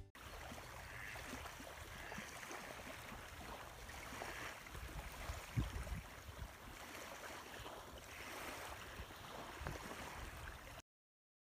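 Small waves lapping along a bay shoreline: a quiet, steady wash of water with a few low thumps, cutting off abruptly near the end.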